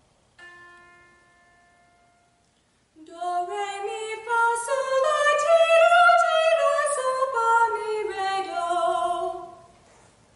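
A single reference note sounds and fades, then a young woman sings a scale unaccompanied. Her voice climbs step by step about an octave and comes back down to her starting pitch.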